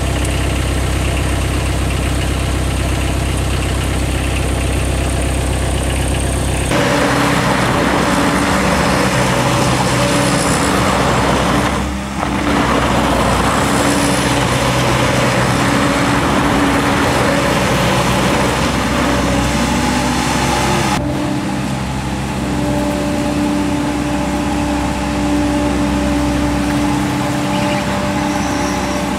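Mudd-Ox XL amphibious eight-wheel ATV's engine running as the machine drives. The sound changes abruptly twice, about seven seconds in and again near twenty-one seconds.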